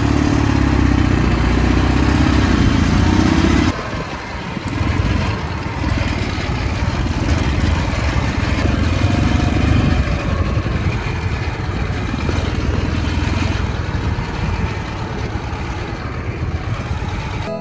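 Ural motorcycle engine running steadily, loud for the first four seconds or so, then quieter as it carries on running.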